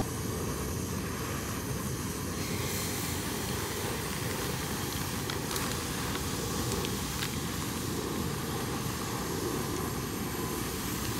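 Portable camping gas stove burning with a steady hiss under a small griddle, as frozen beef tripe and intestine are laid on it and begin to sizzle. A few faint light clicks and rustles of a plastic bag come through.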